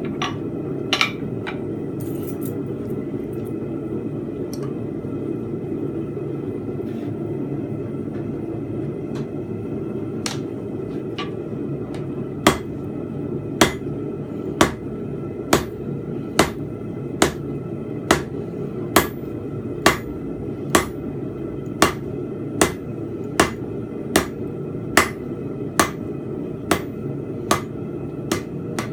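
2 lb rounding hammer striking steel on an anvil while forging fence pegs: a few scattered blows, then a steady run of about one blow a second, each with a faint metallic ring. A steady low rushing noise runs underneath.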